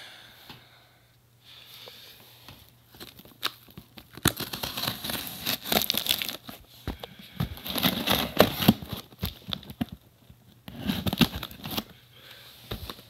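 Mailed packaging being torn and crumpled open by hand. The rustling comes in irregular bursts, busiest from about four to nine seconds in and again briefly near the end.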